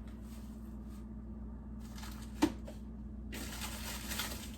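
Food items being taken out of a refrigerator: a single sharp knock about halfway through, then rustling of packaging from about three seconds in, over a steady low hum.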